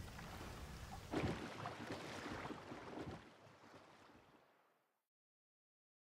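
Faint outdoor ambience of wind and lapping water, with a louder stretch of noise from about one to three seconds in, then fading out to silence.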